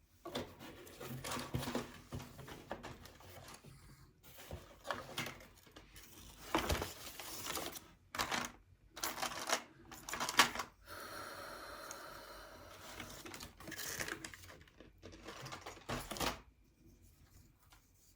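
Hand craft work on paper and cardboard: a series of scrapes, rustles and light taps, with one longer, steady scrape about two-thirds of the way through.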